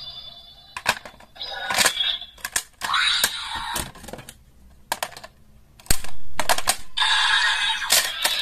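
Sharp plastic clicks and clatter of Wonder Ride Books being pulled from and slotted into a DX Seiken Swordriver toy belt. Near the end the toy's electronic voice and music start up again.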